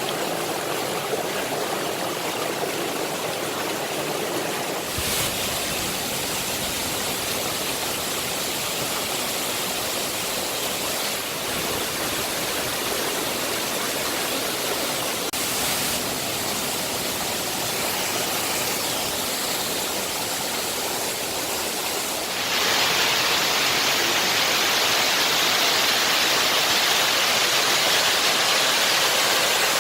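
Waterfall pouring over rocks, a steady rush of falling water. It gets louder and hissier about three quarters of the way through.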